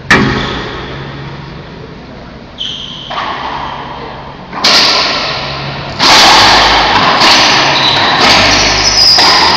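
Racquetball rally: sharp pops of a racquetball struck by racquets and rebounding off the court walls, each ringing on in the hall's echo. The hits come closer together and louder from about six seconds in.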